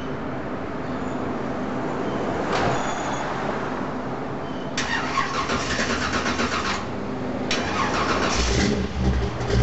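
1955 Chevy wagon's 360 cubic-inch small-block V8 being started: the starter cranks rapidly for about two seconds, stops, cranks again, and the engine catches near the end with a deep low rumble.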